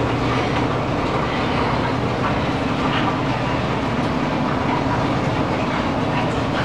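Groen Vortex 100 electric countertop steamer running in timed cook mode, giving a steady mechanical noise with a low hum and a few faint ticks.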